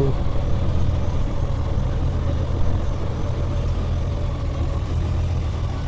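Honda Gold Wing's 1,800 cc flat-six engine idling, a steady low hum that is very quiet.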